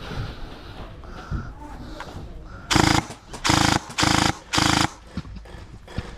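Gel blaster firing four short full-auto bursts in quick succession, about three seconds in, its motor and gearbox cycling rapidly in each burst.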